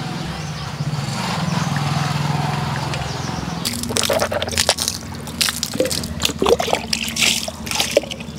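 Water splashing and dripping as a man scoops water from a small tub into his cupped hand and washes his face, irregular splashes starting about four seconds in. Before that there is a steady low hum.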